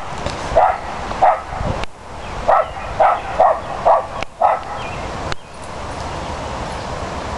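West Highland white terrier barking: seven short, sharp barks over about four seconds, the last three in quick succession, then she falls quiet.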